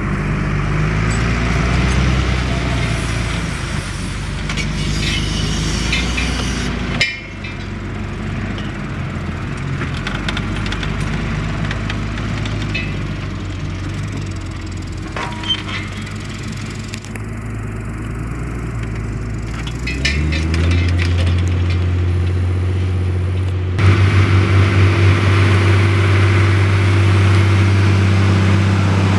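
Fendt Favorit 512 C's six-cylinder diesel engine running steadily under load while pulling a four-furrow reversible plough. The engine sound jumps abruptly a few times, about a quarter of the way in and again twice near two-thirds of the way through.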